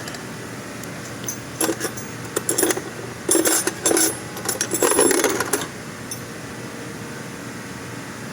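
Metal tools and brake parts being handled: a run of sharp metallic clinks and clanks between about one and six seconds in, over a steady background hum.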